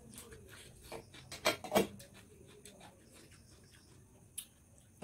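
Eating sounds from people eating by hand off metal plates: chewing, mouth smacks and the soft rustle of roti being torn, with two louder sharp noises about a second and a half in.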